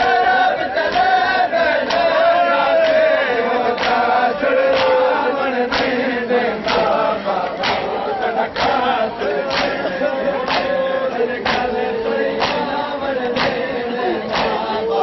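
A crowd of men chanting a mourning chant (nauha) in unison. From about two seconds in, sharp hand-slaps on their chests (matam) land together about once a second, in time with the chant.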